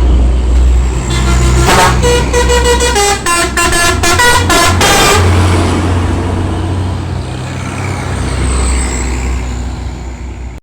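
Container truck passing with its telolet musical horn playing a quick run of stepping tones for about four seconds. Under the horn and after it is the truck's engine rumble.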